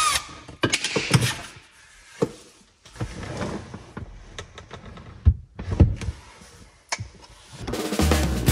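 A cordless drill-driver's rising whir cuts off right at the start. It is followed by scattered knocks and clunks of parts being handled and set down. Background music comes in near the end.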